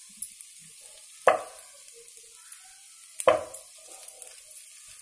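Chicken pieces being stirred with a spatula in a non-stick frying pan over a faint sizzle, with two sharp knocks of the spatula against the pan about two seconds apart, the first about a second in.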